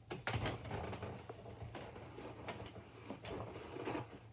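Soft rubbing and small irregular clicks of a phone's glass screen being wiped clean by hand, over a steady low hum.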